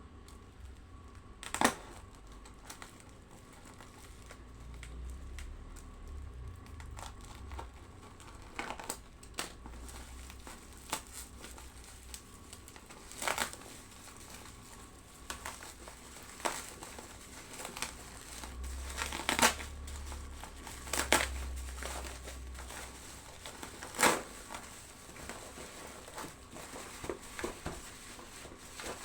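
Shipping package being opened by hand: packing material crinkling and crumpling, with scattered sharp crackles and tearing.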